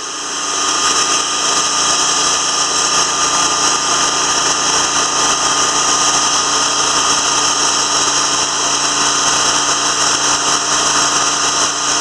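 TimberKing 2000 band sawmill sawing through an eastern white pine log: the engine-driven band blade runs steadily under load, the noise rising over the first second and then holding level.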